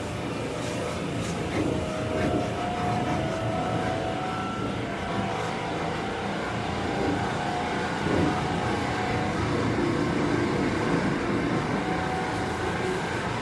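Running noise inside a Seibu 9000 series electric train car, carried by its traction motor, which is known for an abnormal noise. Over the rumble of the car in motion, the motor gives a whining tone that rises a little early on and then holds steady.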